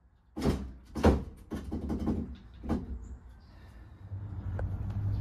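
Five sharp knocks at uneven spacing over the first three seconds as a steel hitch receiver is knocked into place on a Toyota Tacoma's rear frame. A low steady hum comes in near the end.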